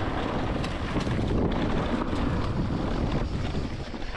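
Wind buffeting the microphone: a loud, uneven, deep rushing noise.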